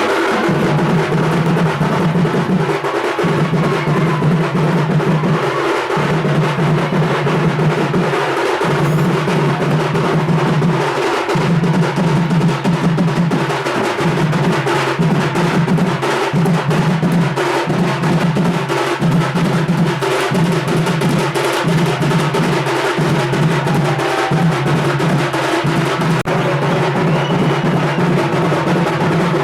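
Loud music with steady drumming and other percussion over a low held tone that breaks off and restarts about every two and a half to three seconds.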